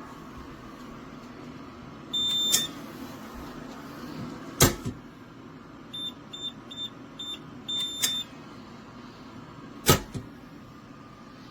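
Biometric pistol safe's electronic keypad beeping over a steady hum. There is one long high beep, then a sharp click, then four short key-press beeps and a longer confirming beep, and finally a loud clunk from the safe's mechanism.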